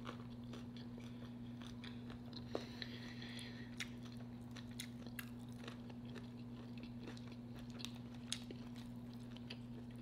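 A person chewing crunchy food, with scattered small crunches and clicks over a steady low hum.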